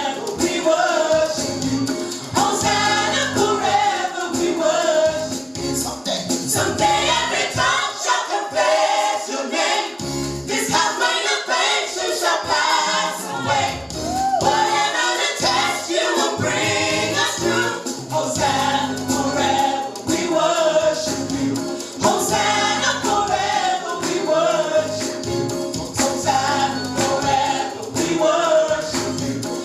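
Live gospel worship music: a choir singing over instrumental accompaniment.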